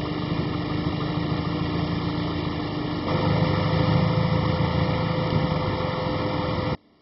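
Turbocharged Honda Civic's B16A2 four-cylinder engine running steadily with a low rumble. It gets louder about three seconds in and cuts off abruptly near the end.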